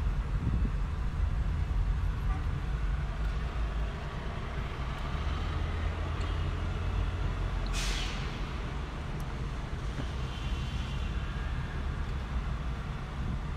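Car driving slowly through a parking garage, heard from inside the cabin: a steady low engine and road rumble, with a short hiss about eight seconds in.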